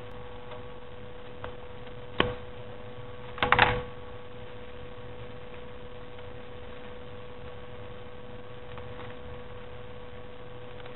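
Steady electrical hum with a constant tone, under a low background hiss. About two seconds in there is a single tap, and a second or so later a short flurry of handling noise as hands take hold of a paper cut-out chain on a wooden table.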